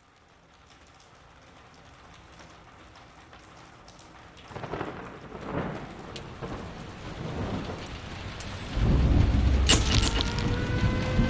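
Heavy rain with thunder, fading in from near silence, with rumbles about halfway through, then growing loud near the end with a sharp crack. A steady held tone comes in just before the end.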